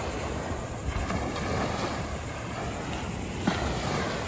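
Wind rushing and buffeting on the microphone, a steady noise with low gusty rumbling, and a brief thump about three and a half seconds in.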